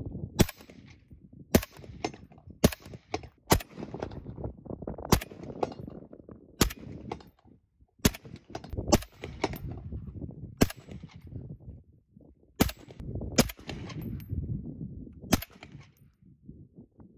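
Suppressed FN SCAR 17S 7.62 rifles firing single shots, about fifteen at irregular intervals of one to two seconds. The first shots are through a HUXWRX Flow 7.62 Ti suppressor, the later ones through a Dead Air Sandman-S.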